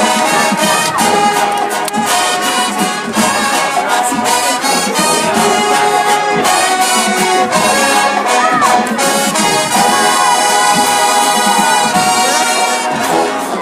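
Marching band playing loudly: trombones and trumpets carry the tune over a steady beat of drum hits.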